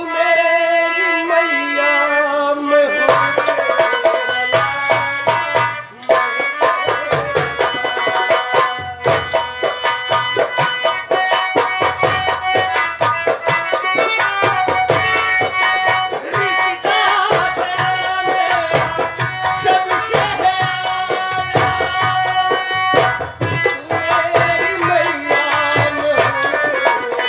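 Live folk-theatre music led by fast, rhythmic tabla strokes under a sustained melodic instrument; the drumming comes in about three seconds in.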